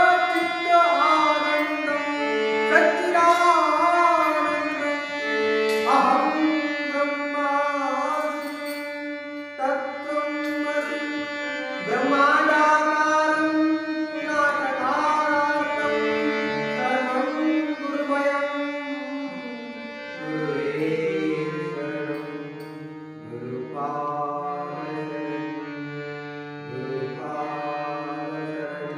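Harmonium playing a devotional Carnatic-style melody in sustained reedy notes, with a voice singing along in long gliding phrases. A low held drone note comes in about two-thirds of the way through.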